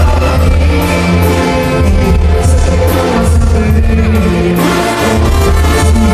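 Live banda music played loud: a male singer over a tuba bass line that moves in steady notes, with brass, congas and drums.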